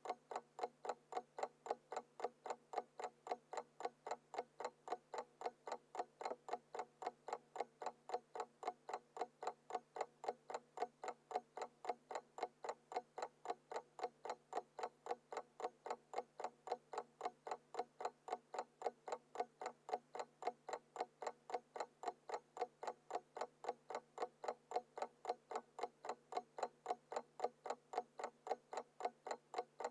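Small mechanical alarm clock ticking at a quick, even rate of several ticks a second.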